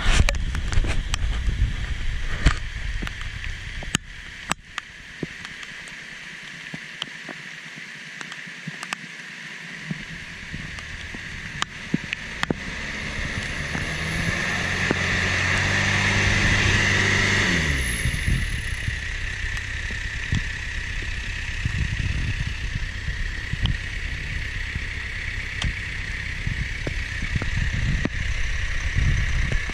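Off-road 6x6 truck's engine working through mud, revving up about halfway through, its note rising and then falling away; sharp knocks come in the first few seconds.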